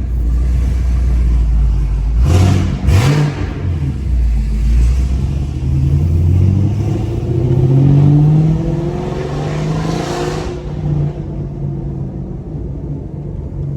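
Chevrolet Camaro SS 1LE's naturally aspirated 6.2-litre V8 pulling through a gear, its note rising steadily in pitch for several seconds, then easing off to a lower, steadier drone about ten seconds in.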